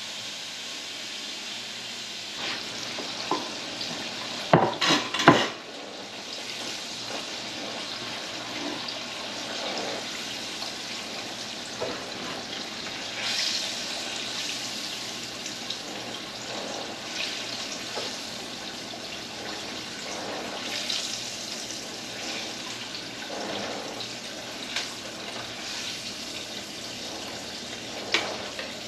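Flour-dredged catfish pieces deep-frying in hot beef tallow: a steady sizzle. A few loud knocks come about five seconds in and again near the end.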